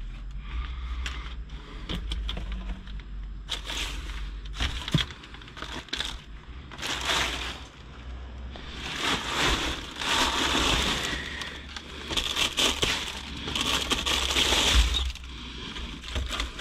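Food packaging rustling and crinkling in irregular bursts as hands rummage through a bin of discarded groceries, over a low steady hum. The handling is busiest in the second half.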